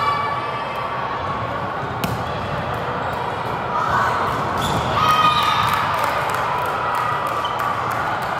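Volleyball rally in a gym: a sharp smack of a hand on the ball about two seconds in, then players and spectators shouting and cheering as the point is won, over steady crowd chatter.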